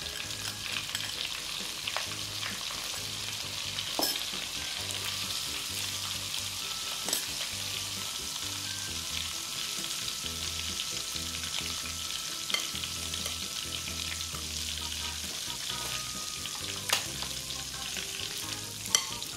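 Hot cooking oil with margarine melted into it sizzling steadily in a wok, the oil at frying heat. A few sharp clicks are scattered through it.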